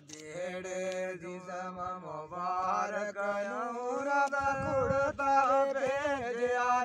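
Unaccompanied male voices singing the drawn-out opening of a Gojri folk song (bait), in long, wavering held notes.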